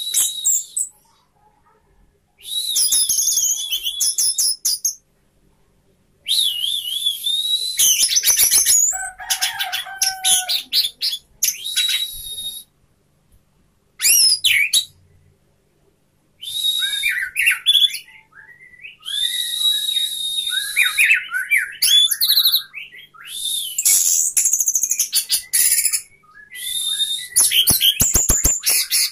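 Orange-headed thrush singing a loud, varied song: bursts of rapid high whistles, glides and trills lasting from a second to several seconds, with short pauses between them.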